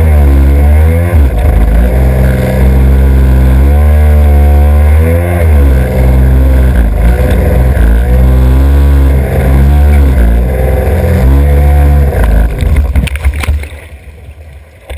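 Stand-up jet ski engine running hard, its revs repeatedly rising and falling as the throttle is worked through the waves. The engine sound drops away sharply near the end.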